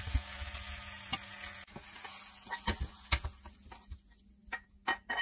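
Sauce-coated fried chicken wings hissing and being stirred in a hot frying pan with a silicone spatula; the steady sizzle stops abruptly about a second and a half in. Then comes a series of sharp taps and knocks as the wings are scraped out of the pan onto a plate.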